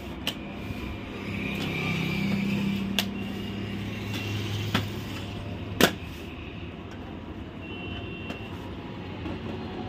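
Sharp plastic clicks and snaps from the hinged front paper-output cover of a Canon G3770 ink tank printer as it is pushed shut and pops back open, the loudest about six seconds in, over a steady low hum.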